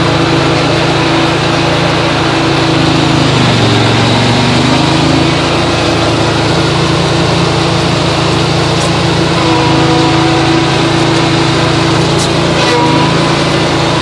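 Garden tractor engine running steadily, driving a front-mounted snowblower, heard from inside the tractor's cab. The engine note sags briefly about four seconds in and again near the end.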